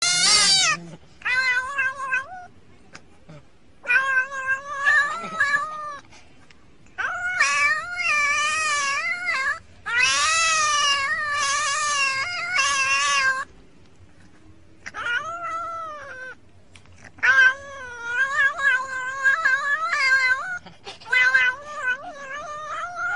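Domestic cat yowling and meowing in long, drawn-out calls whose pitch wavers up and down, about eight bouts in all with short pauses between them.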